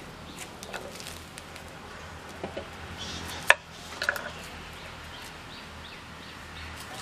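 Kitchen knife slicing small onions on a wooden cutting board: a few irregular sharp taps, the loudest about halfway through, over a faint steady low hum.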